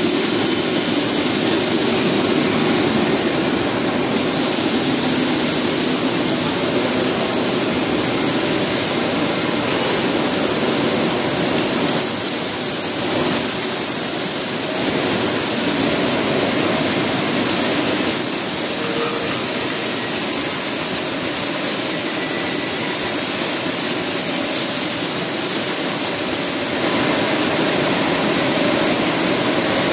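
LDPE blown film extrusion line running: a loud, steady rush of air and machine noise, with a high hiss that swells twice in the middle and later part.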